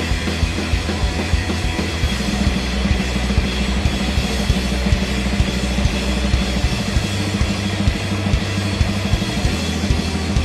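Live rock band playing: electric guitar, electric bass and a drum kit, with a dense stream of kick drum, snare and cymbal hits.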